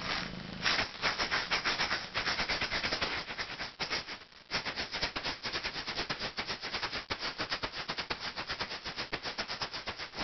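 Jim Dunlop mini maraca rattling in quick, uneven shakes as a kitten bats it about, with a brief lull about four seconds in; the rattling then stops abruptly.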